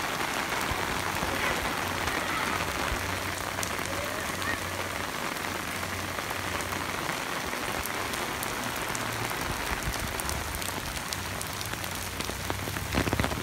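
Heavy rain falling steadily on wet ground and puddles, an even hiss of drops, with a few sharp taps near the end.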